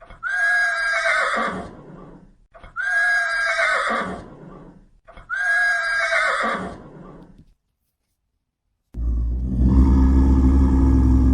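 Horse whinny sound effect played three times, identical each time and about two and a half seconds apart. Then, about nine seconds in, a loud, low, steady roar starts.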